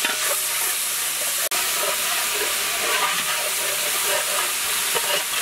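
Ginger-garlic paste sizzling in hot oil and ghee in a large pot: a steady frying hiss, with a flat metal spatula stirring through it. The hiss breaks off for an instant about a second and a half in.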